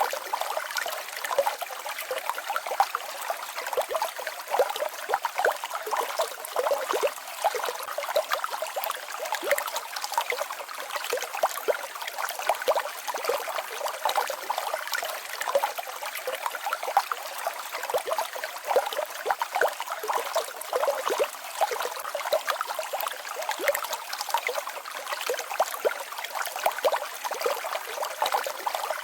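Small mountain stream babbling and trickling over a little waterfall, a steady splashing with many small gurgles.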